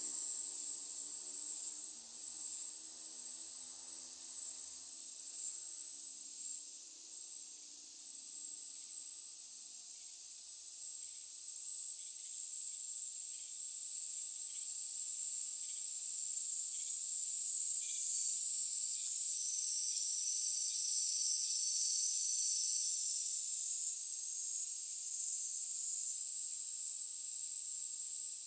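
Insects in the field keeping up a steady, high-pitched chirring chorus, which swells louder for a few seconds past the middle.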